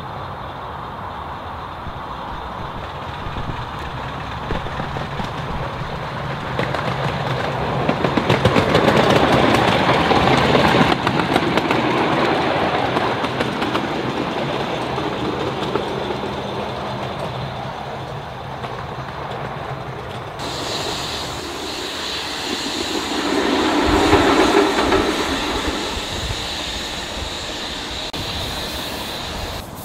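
A 7¼-inch gauge miniature steam locomotive approaching and running past, with a rapid rattle of clicks, loudest about nine to eleven seconds in. After a cut about twenty seconds in, train sound swells and fades again, peaking around twenty-four seconds.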